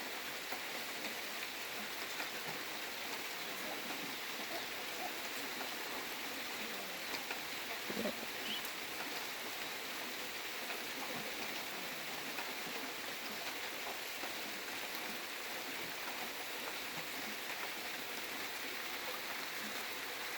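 Steady rain falling, an even hiss, with a brief soft knock about eight seconds in.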